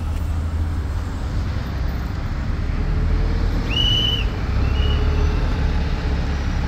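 Steady road-traffic rumble of cars passing on a busy street, with a short high-pitched whistle about four seconds in.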